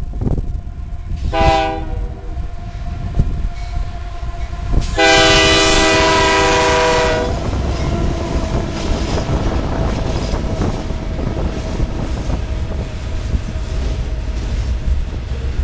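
Canadian Pacific GE AC4400CW diesel locomotive sounding its air horn as it approaches: one short blast, then a long blast of about two and a half seconds, the loudest thing here. After the horn, a steady low rumble with light clicking as the freight cars loaded with wind-turbine tower sections roll past.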